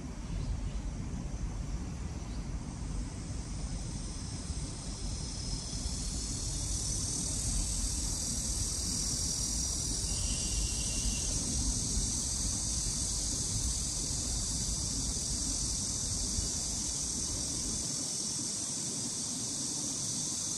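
Insects buzzing in one steady, high chorus that swells over the first few seconds and then holds, over a low steady rumble.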